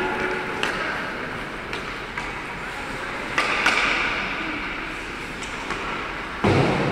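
Ice hockey play on an indoor rink: a few sharp clicks of sticks striking the puck, then a loud thud near the end.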